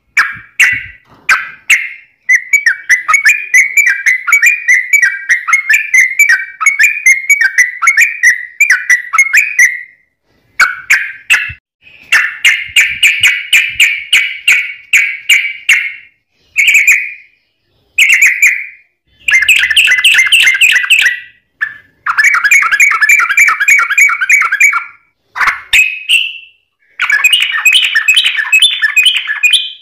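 Yellow-vented bulbul (trucuk) singing fast, tightly packed chattering phrases of rapid notes. The song comes in runs of a few seconds, the longest about eight seconds, broken by short pauses.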